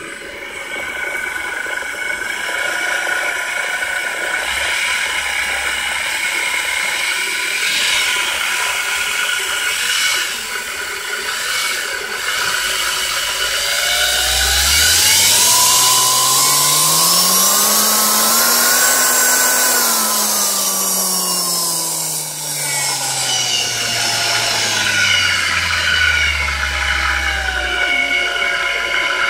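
Homemade electric jet drive running on a 10S battery pack, its motor and impeller shaft spinning with a high whine over a rough mechanical whir. About halfway through, the pitch climbs for several seconds to a peak and then falls back as the speed is raised and lowered again.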